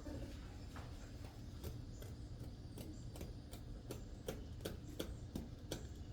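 Irregular sharp clicks and taps, coming faster in the second half, over a low steady hum.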